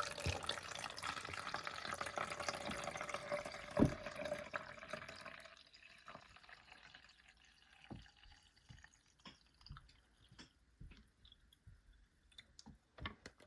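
Water poured out of a plastic test-tube toy container for about five seconds, with a faintly rising pitch, then scattered drips and light plastic clicks.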